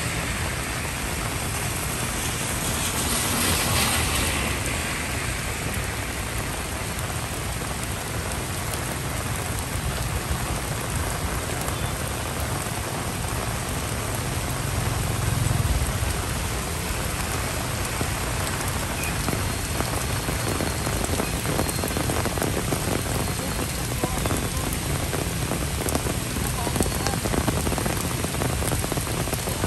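Heavy rain falling steadily on wet paving and foliage, a dense, even hiss that swells briefly about three seconds in.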